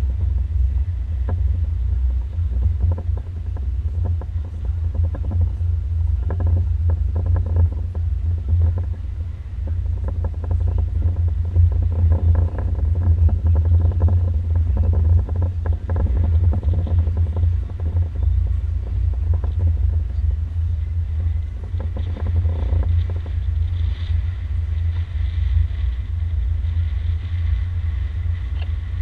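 Motorboat under way: a steady, heavy low rumble of wind buffeting the microphone on the bow, with the boat's running noise beneath it.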